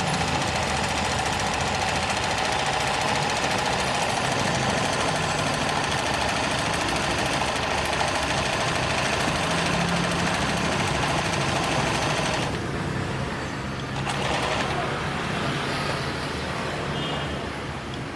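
Janome NS 385 iron-body sewing machine, driven by its external motor, running steadily while sewing zigzag stitches. It eases off briefly about two-thirds of the way through.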